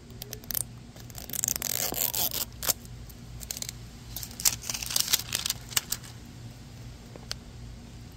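Paper wrapper being torn and peeled off a plastic toy capsule in short rustling tears, with a few sharp clicks from the plastic case being handled.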